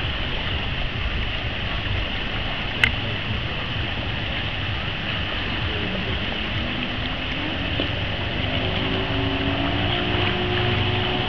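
Steady background hiss and low rumble. From about six seconds in, a boat engine's drone grows in, rising slightly in pitch and then holding steady. A single sharp click comes about three seconds in.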